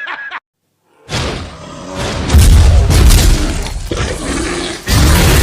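Loud rumbling boom sound effect, like an explosion, starting about a second in after a brief silence, swelling, easing off, then surging again near the end.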